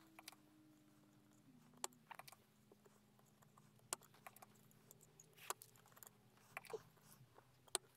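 Near silence broken by about ten small sharp clicks and taps, spaced irregularly, from desoldering a chip on a washer dryer's control board with a soldering iron and a solder sucker. A faint low hum runs underneath, dropping slightly in pitch early on and stopping near the end.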